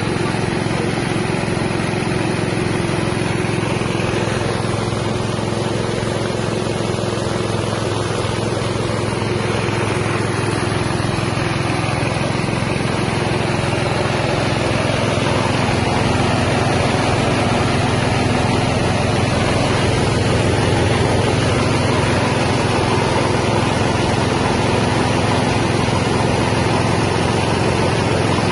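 Mini rice milling machine running steadily, driven by its small 6.5 hp engine, with a constant engine drone and machine noise that grows a little louder about halfway through.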